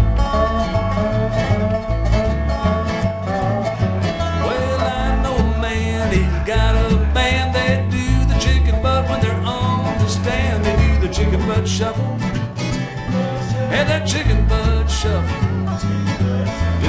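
Instrumental break of a swinging country shuffle: a resonator guitar played flat on the lap with a slide bar, its notes gliding, over acoustic guitar and upright bass.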